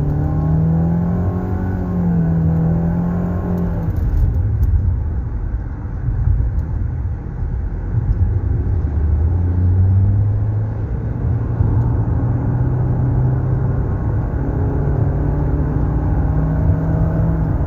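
Nissan car under hard acceleration, heard from inside the cabin: the engine note rises, drops about four seconds in, then climbs again, over steady road rumble. The mechanic hears no go-kart-like noise from the freshly replaced transmission.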